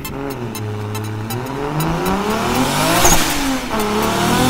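Car engine revving, its pitch climbing to a peak about three seconds in, dropping, then climbing again near the end.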